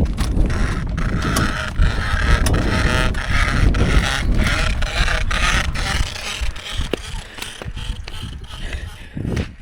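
Bicycle freewheel ticking rapidly as the freshly repaired bike rolls, over a low rumble, easing off after about six seconds.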